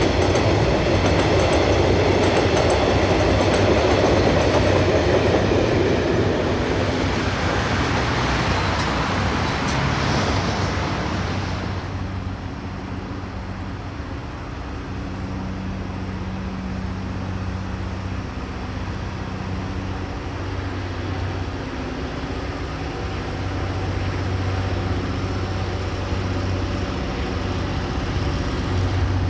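A diesel-hauled train on the rails: the wheels and wagons rumble loudly with some clatter for about the first ten seconds, then fall away to a steadier, quieter low engine hum.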